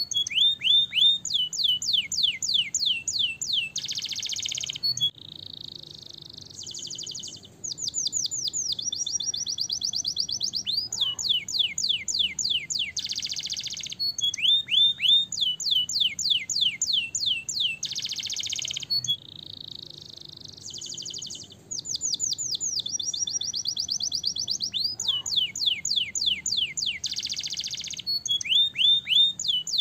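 Domestic canary singing: runs of quick, falling whistled notes broken every few seconds by dense, buzzy rolled trills. The same song phrase comes round again about every 14 seconds.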